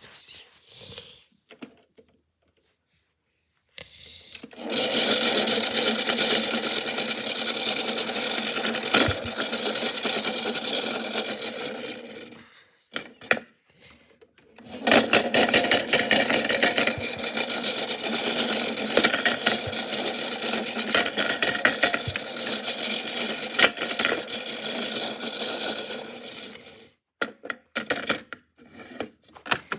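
Washing machine running with a big rock clattering inside the drum: two long stretches of dense rattling and knocking, with a short pause between them.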